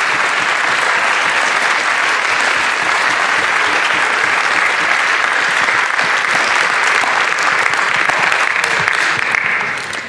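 Audience applauding, a steady round of clapping that fades out near the end.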